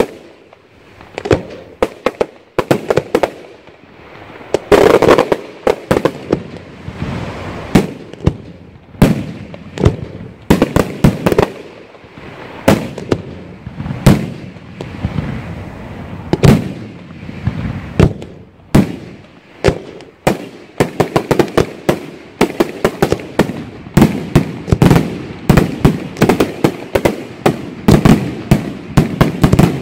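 Italian aerial fireworks shells bursting in an irregular series of sharp bangs, coming thicker and faster in the second half.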